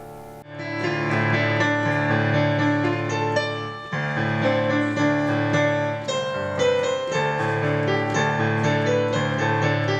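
Piano music: a held chord fades out, then about half a second in a new passage of chords and melody starts abruptly and plays on.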